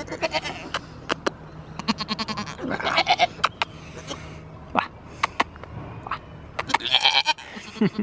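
Goats bleating close up, one call about two to three seconds in and another near the end, among many sharp clicks and knocks near the microphone.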